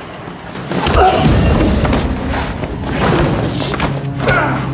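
A sudden fight breaks out: heavy thuds and a body slamming against a wall, with strained vocal sounds, over dramatic score music.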